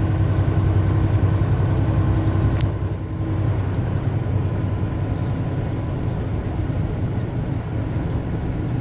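Steady drone of a truck's engine and road noise heard inside the cab, with a low hum and a faint steady whine. A single sharp click comes about two and a half seconds in, and the drone settles a little quieter after it.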